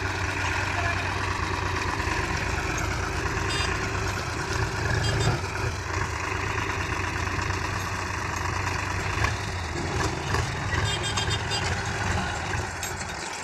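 Heavy diesel engine running steadily at idle, with a few faint clicks and rattles.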